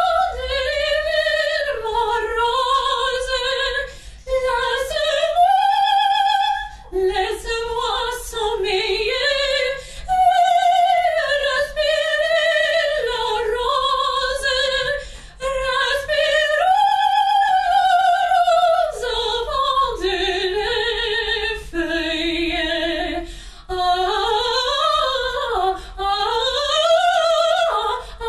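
Operatic soprano singing with wide vibrato, in long held phrases with short breaks between them.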